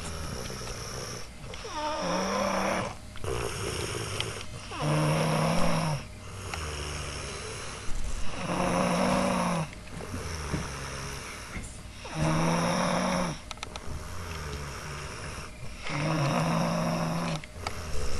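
A person with a head cold snoring loudly and rhythmically: five rasping, low-pitched snores, one about every three and a half to four seconds, with quieter breathing between them.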